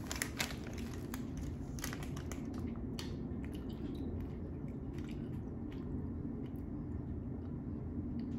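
Someone chewing candy close to the microphone, with scattered sharp mouth clicks, over a steady low background hum.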